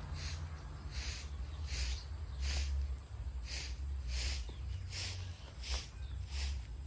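Puppies eating, a short noisy chewing or smacking sound repeating regularly about once every 0.8 seconds over a low steady rumble.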